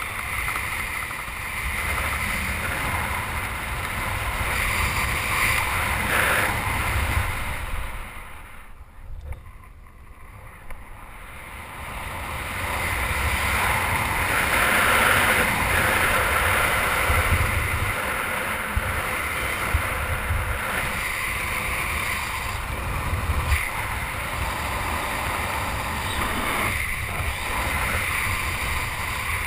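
Wind rushing over a helmet camera's microphone during a descent under an open parachute: a steady rumbling noise that drops away for a few seconds about a third of the way in, then comes back.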